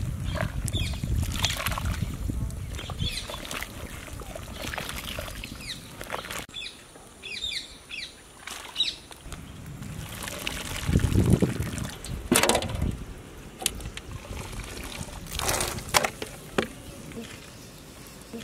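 Water splashing and dripping as slaughtered roosters are dunked and swished by their feet in a pot of hot water, scalding them to loosen the feathers for plucking. The splashes come irregularly, strongest about two thirds of the way through.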